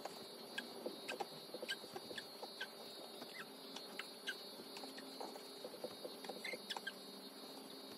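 Scattered small clicks, squeaks and soft rustles of wet wipes and a diaper being handled during a baby's diaper change, over a faint steady hum.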